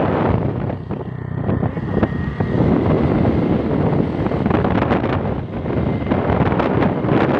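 Wind blowing across the microphone of a moving vehicle, over the vehicle's running noise: a loud, steady rush that eases briefly about a second in.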